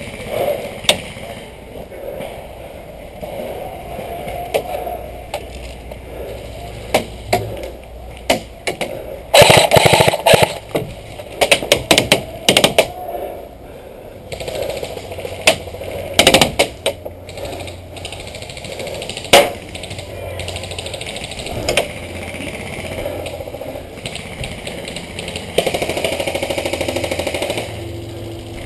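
Airsoft guns firing: scattered sharp pops of single shots and short bursts, with the longest rapid burst about nine seconds in. Near the end comes a rapid mechanical rattling buzz.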